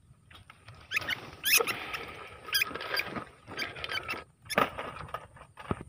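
Wire mesh cage traps rattling and clinking against each other as the traps are handled and set into a basket, starting about a second in, with a trapped field rat squeaking.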